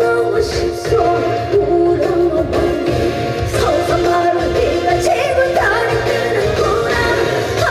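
A woman singing a trot song live over a full band backing with a steady low beat, holding long notes.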